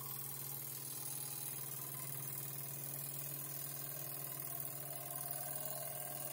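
Jensen 35 1/2 model steam engine running steadily, driving a miniature bandsaw through a belt, with a steady low hum under it.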